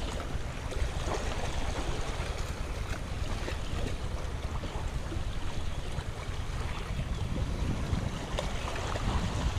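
Wind buffeting the microphone over waves washing against shoreline rocks: a steady rush of noise with a low rumble.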